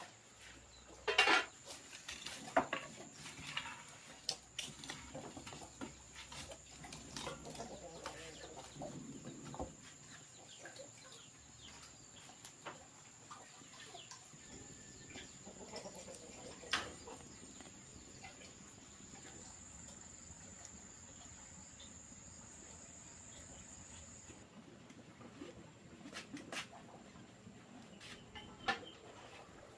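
Chickens clucking among scattered light knocks and clicks, with a steady high-pitched whine that fades out near the end.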